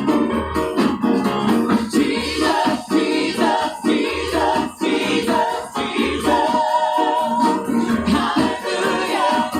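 Church praise team singing a gospel song in harmony over a band, with a regular low beat underneath.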